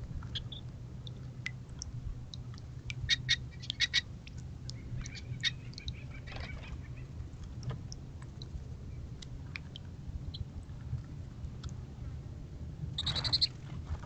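Goldfinches giving short high chirps and twitters, in clusters, with the loudest burst of calls near the end, over a steady low hum.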